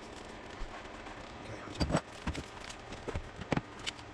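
Handling clicks and knocks from a motorcycle warning-light housing being prised apart, its parts worked loose after the back screws are out. About half a dozen sharp knocks, starting near the middle, with the loudest pair about two seconds in.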